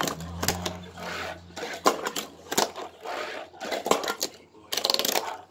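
Fingerboard clacking and tapping as it is flicked, popped and landed on a tabletop and a toy handrail-and-stair set: a string of sharp single knocks, then a quick rattle of clicks about five seconds in.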